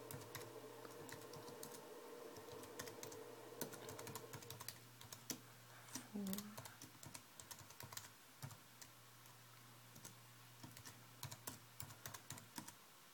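Faint typing on a computer keyboard: irregular keystroke clicks as a terminal command is entered, over a low steady hum.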